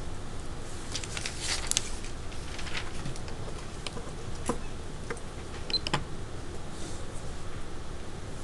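Classroom room noise while students work quietly: a low steady hum with scattered small clicks and rustles, a brief cluster of them a second or two in and a few sharper clicks near the middle.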